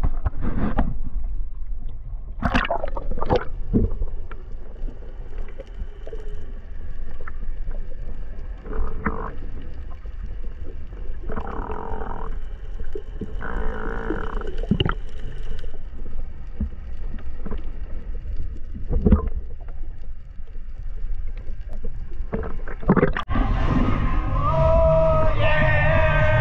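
Muffled sound from a camera held underwater: a low rumble of moving water with a few knocks and short bursts of bubbling. Music comes back in near the end.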